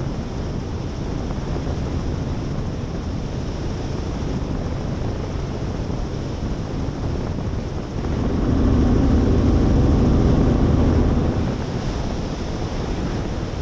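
Robinson R44 helicopter in flight: a steady rush of rotor and engine noise mixed with wind on the microphone. About eight seconds in, it grows louder with a low hum for some three seconds, then settles back.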